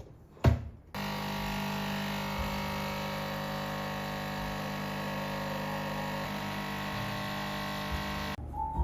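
A motorised appliance switches on abruptly about a second in, runs with a steady hum for about seven seconds, then cuts off abruptly near the end. A sharp knock comes just before it starts.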